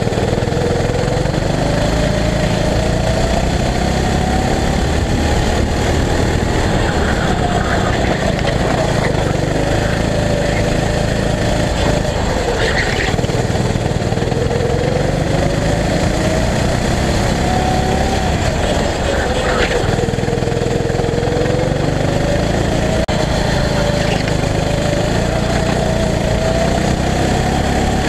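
Go-kart engine running at racing speed, its note rising and falling several times as the kart speeds up and slows around the track, heard from on board.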